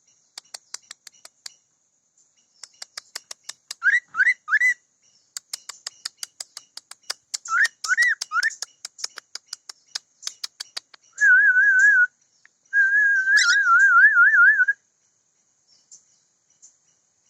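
Cockatiel singing: rapid clicking chatter broken by short rising whistle notes about four and eight seconds in, then two long warbling whistles between about eleven and fifteen seconds.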